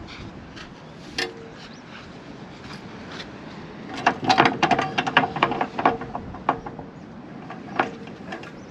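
Metal camper staircase clanking and rattling as it is handled: a quick flurry of metallic knocks with a slight ring about four seconds in, and a few single knocks before and after.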